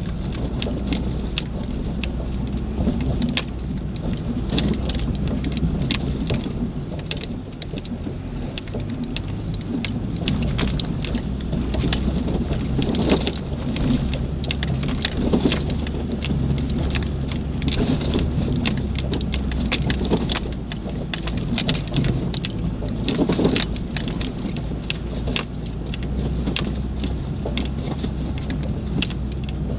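Four-wheel-drive's engine running with a steady low drone as it crawls over a dry, rutted dirt trail, heard from inside the cab. Constant small knocks and rattles come from the tyres and body going over the bumps, with a few heavier thumps along the way.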